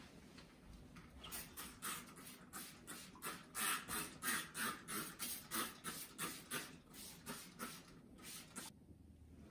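Spray bottle of ironing spray squeezed in quick repeated squirts, about three a second, misting onto a hanging fabric curtain to ease its wrinkles. The squirts begin about a second in and stop near the end.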